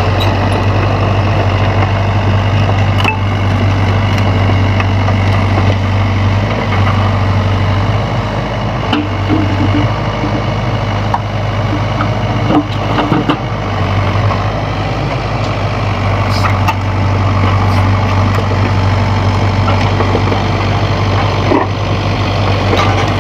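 Sany hydraulic excavator's diesel engine running steadily, with a few short knocks scattered through.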